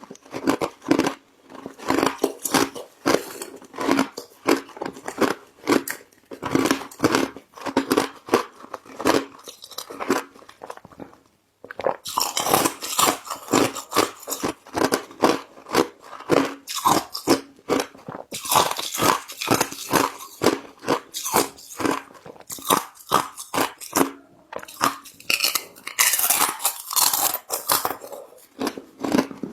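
Ice being bitten and chewed: rapid, crisp crunching strokes, with a short pause about eleven seconds in before the crunching starts again.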